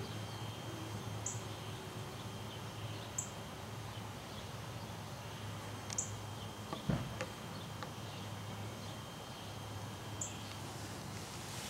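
Garden ambience: a short high chirp four times, a few seconds apart, over a steady faint high tone and a low hum, with a brief thump about seven seconds in.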